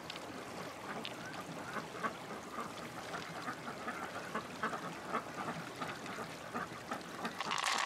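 Faint, irregular wet clicks and squelches as fingers work through the soft flesh of an opened freshwater pearl mussel, with a brief louder rustle near the end.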